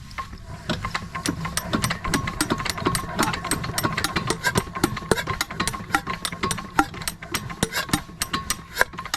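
10 hp diesel water-pump engine turning over with a rapid, regular knocking, about five beats a second, over a low steady rumble, during a hard start that the men put down to low compression.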